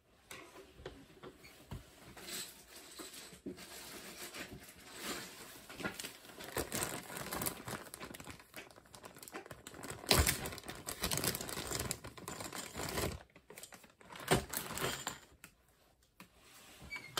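LEGO bricks being handled and fitted together: a busy run of small plastic clicks and rattles with rustling, and louder clatters about ten and fourteen seconds in.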